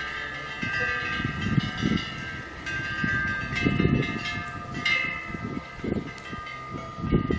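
A Korean temple wind bell (pungyeong), a small metal bell hung from the eaves, rings on and off as the wind swings its clapper, its overlapping tones hanging on between strikes. Gusts of spring wind rumble against the microphone.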